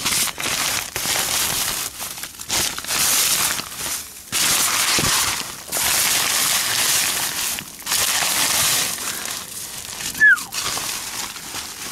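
Black plastic bags and a tarp being pushed aside, crinkling and rustling in stretches of a second or two with short pauses between. About ten seconds in, a short, high falling squeak is the loudest moment.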